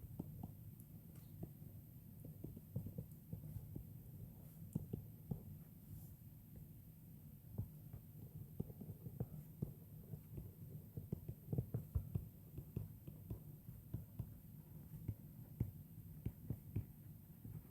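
Faint, irregular soft taps and thumps of someone writing down an answer at a desk, over a low steady hum.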